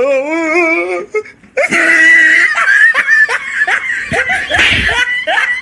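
Loud, high-pitched laughter. It starts as a wavering laugh and breaks into a long stretch of giggling from about a second and a half in.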